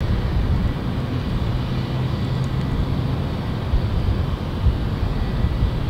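Distant Boeing 757 jet engines running on the runway before take-off: a steady low rumble with a faint thin whine above it.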